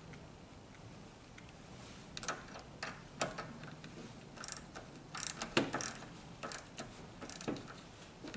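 Craftsman ratchet with a 10 mm socket clicking in short, irregular runs, with small metal clinks, as the negative battery terminal clamp nut is tightened. The clicks start about two seconds in.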